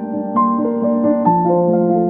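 Background music: a gentle electric-piano melody, its notes changing about every half second.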